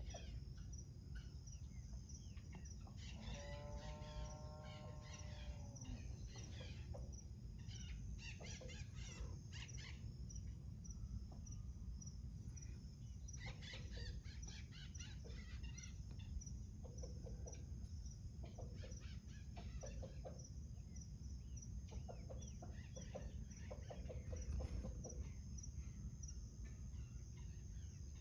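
Farmyard morning sounds: small birds chirping in scattered bursts and a rooster crowing once, about three to five seconds in, over a faint low rumble.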